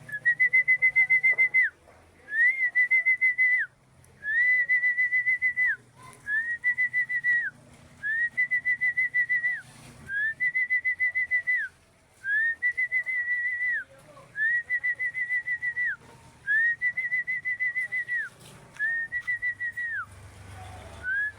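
A whistle blown in ten long trilling blasts, one about every two seconds, each sliding up into a steady warbling tone and dropping off at the end. It is the kind of whistling that pigeon fanciers use to call returning racing pigeons down to the loft.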